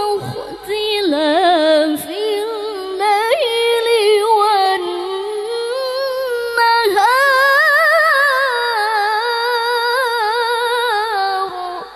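A female Quran reciter (qariah) chanting in the melodic tilawah style, with long held, ornamented notes and wavering vibrato, sung close into a handheld microphone. There are short breaths near the start and about seven seconds in, and a long final phrase that ends just before the close.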